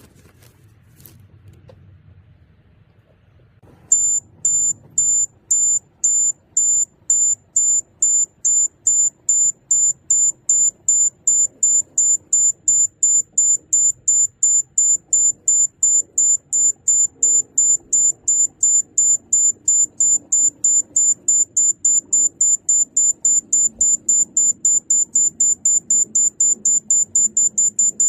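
Mini excavator's refuelling alarm: a high electronic beep that starts about four seconds in, repeating about twice a second and gradually quickening to about three a second as the fuel tank fills.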